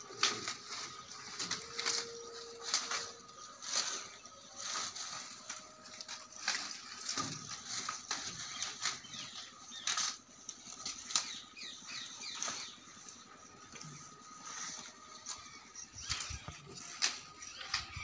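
Goats tugging at and chewing a hanging bundle of fresh leafy branches: irregular rustling and snapping of leaves and twigs with chewing, over a faint steady high whine.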